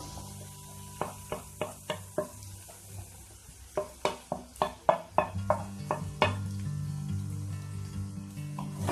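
Shredded chicken frying in a wok of sautéed spice paste, a steady sizzle with a series of sharp clicks and knocks, quickest from about four to six seconds in.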